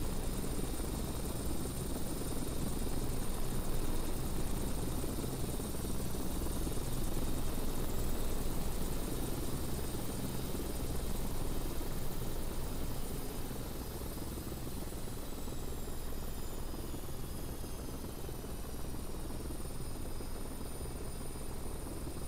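Steady helicopter noise: a low rotor drone with a thin, high turbine whine above it.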